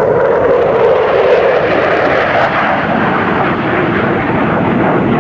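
USAF Thunderbirds F-16 Fighting Falcon jets flying past in formation: loud, steady jet engine noise, its strongest tone dropping slightly in pitch about a second and a half in as the jets pass.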